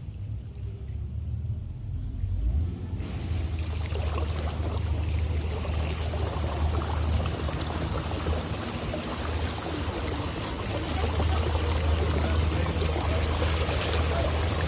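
Motorboat engine running with a steady low drone under water rushing and splashing past the hull. The water noise gets louder about three seconds in, as the boat picks up speed.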